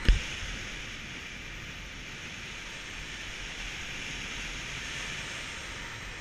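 Steady rush of air over a paraglider's harness-mounted camera microphone in flight, with two brief low thumps at the very start.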